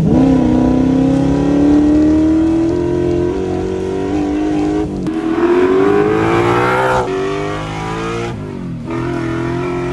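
Holden 355 stroker V8 in a VK Commodore revving hard under full acceleration, heard from inside the cabin. The engine note climbs in long pulls, broken by gear changes about halfway through and again a couple of seconds later, then a brief lift before it settles to a steady note near the end.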